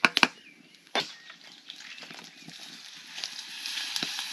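A few sharp knocks at the start and one about a second in, then onions, bacon and tomato paste sizzling in a pot over a campfire as it is deglazed with water. The sizzle builds and gets louder toward the end.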